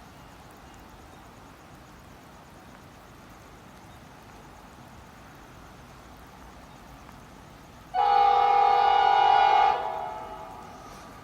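Train horn sounding one blast of about two seconds, a chord of several notes, that starts abruptly about eight seconds in and then dies away. Before it there is only faint steady background noise.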